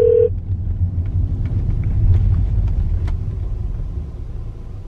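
Steady low rumble of road and engine noise inside a moving car's cabin. A phone's ringing tone from the call, played through the car, cuts off just after the start.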